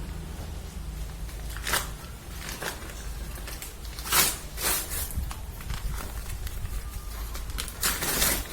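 Gift wrapping being torn and rustled open in several short bursts, over a steady low hum.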